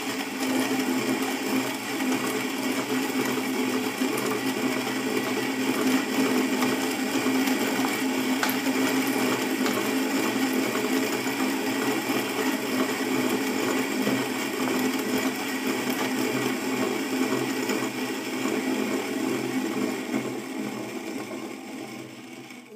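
HG One conical-burr coffee grinder grinding a 17 g dose of coffee beans: a steady grinding hum. It thins out near the end as the last beans pass through the burrs, then stops.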